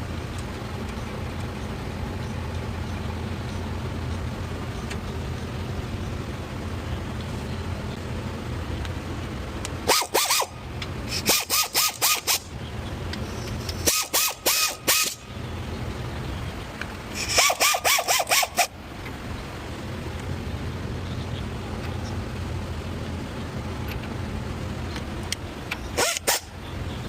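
A power tool running in five short bursts of rapid pulses, over a steady low hum.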